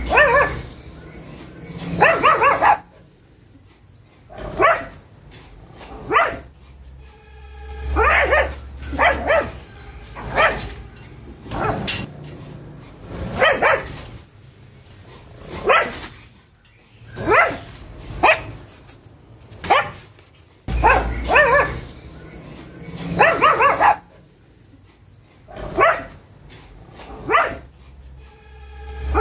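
Pug barking over and over, short barks coming every second or two, some in quick runs of two or three.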